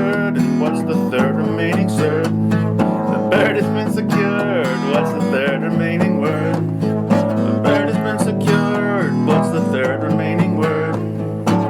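Instrumental passage of a song: strummed acoustic guitar with a melody line that bends and wavers in pitch over it.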